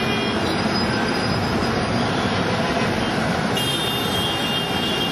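Steady roar of dense road traffic: buses, cars, autorickshaws and motorcycles. A high, thin, steady tone joins about three and a half seconds in.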